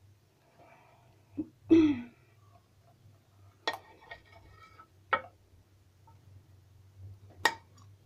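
Knife and hands working raw chicken on a granite counter: three sharp taps about a second and a half apart, after a short throat-clearing sound about two seconds in. A faint low hum runs underneath.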